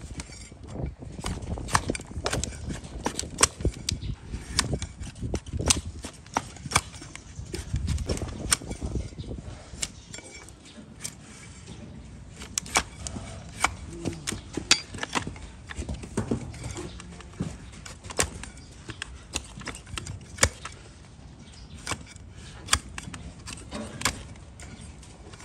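Donkey hooves giving many sharp, irregular clicks and cracks over a low rumble, from hoof work or hooves striking hard ground.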